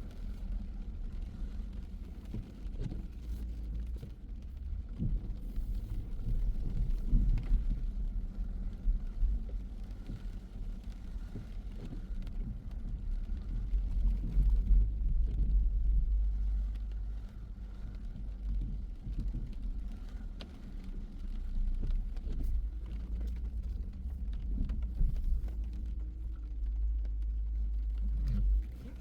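Car driving on city streets: a steady low road rumble with scattered short knocks and bumps.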